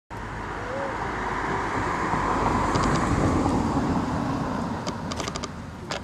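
Road traffic noise that swells to a peak around the middle and then eases off, with a run of quick sharp clicks near the end.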